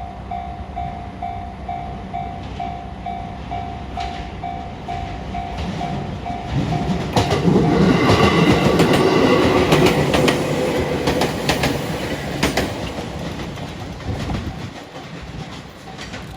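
Level-crossing warning bell ringing about twice a second as a JR 205-series electric train approaches. The train then passes over the crossing, its wheels clicking over the rail joints, loudest around the middle and fading near the end, drowning out the bell.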